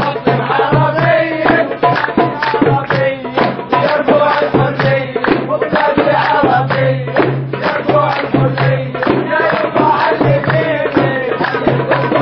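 Arabic dabke-style folk music: a fast drum beat with a singing voice over a held low note, with hands clapping along.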